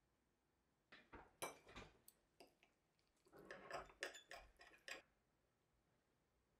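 Steel knife and fork clinking and scraping against a ceramic plate while cutting a portion of lasagna: a run of faint clicks and short scrapes that stops about five seconds in.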